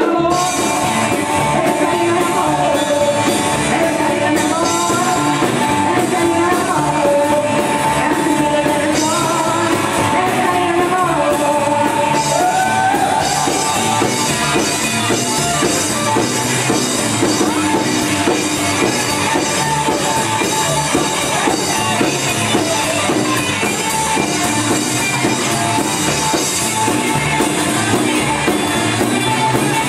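Rockabilly song playing loudly: a band with a singer, the voice most prominent in the first dozen seconds.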